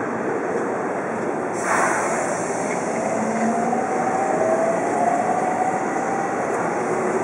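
Container freight train hauled by an EF66 electric locomotive approaching, a steady rumble with a faint whine slowly rising in pitch. A brighter hiss joins about one and a half seconds in.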